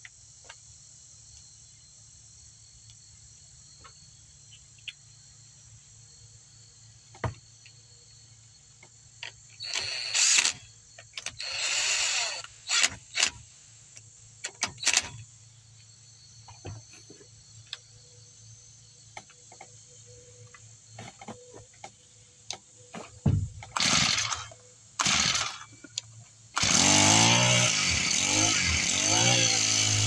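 A cordless drill/driver whirs in several short bursts as screws are driven in. Near the end, after two short loud bursts, the Husqvarna 324L trimmer's small four-stroke engine starts and keeps running steadily on its freshly replaced carburetor.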